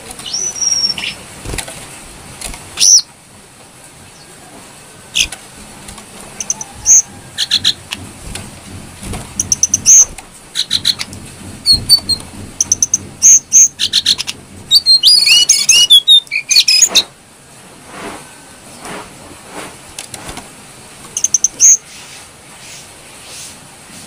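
Lesser shortwing singing: scattered short, high whistled notes and chirps, with a fast, tangled run of notes a little past the middle.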